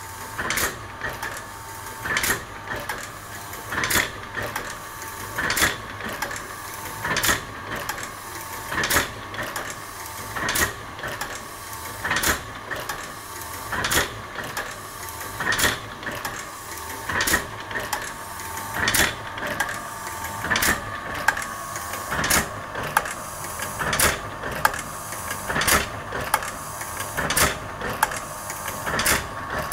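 Thompson automatic platen printing press running empty under its electric motor, not yet printing: a sharp clack about every second and a half to two seconds, lighter clicks between, and a steady whine underneath.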